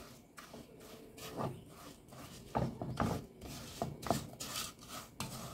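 Wooden spoon scraping and stirring granulated sugar in an aluminium ring pan, in irregular gritty strokes. The sugar is melting towards caramel, and it is stirred so that the bottom layer does not burn.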